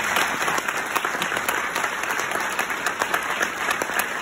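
Audience applauding steadily, with some claps close by.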